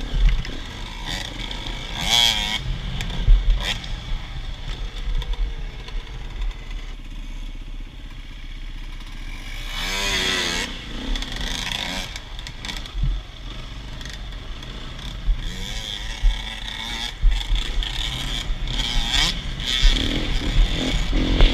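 Off-road enduro motorcycle heard from on board while riding a dirt track: the engine's revs rise and fall again and again with throttle and gear changes, with a louder rev-up about halfway through.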